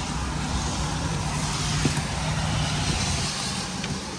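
A motor vehicle driving past, its engine hum and tyre noise swelling in the middle and then fading.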